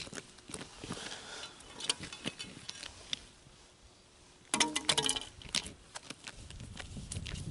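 Scattered crunching steps on snow-covered ice, then a brief clatter with a short ring about four and a half seconds in as an ice chisel is handled. A low rumble sets in near the end.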